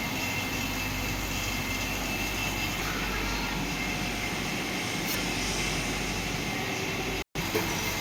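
Old refrigeration compressor unit running with a steady mechanical drone and hum. The sound cuts out for an instant about seven seconds in.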